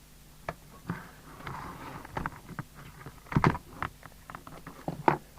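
A handful of scattered clicks and knocks, the loudest pair about three and a half seconds in, over a faint steady hum.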